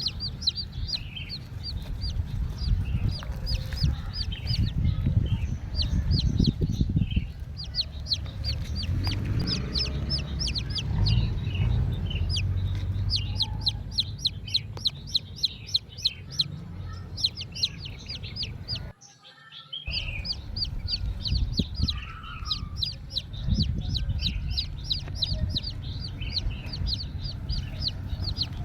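Chickens clucking and peeping: a fast, continuous run of short high-pitched peeps over a low rumble. The sound drops out for about a second roughly two-thirds of the way through.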